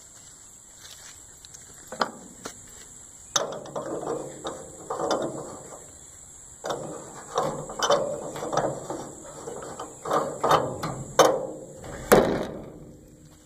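Mechanical ratcheting clicks in repeated short runs, a second or two apart, with a few sharp metallic clanks near the end.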